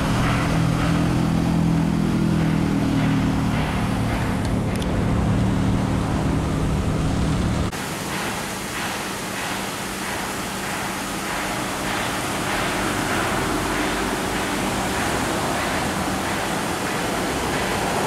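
A Boeing C-17A Globemaster III's four turbofan engines rumbling in the distance as it climbs away after takeoff, a low steady drone. About eight seconds in, the sound cuts abruptly to an even rushing noise.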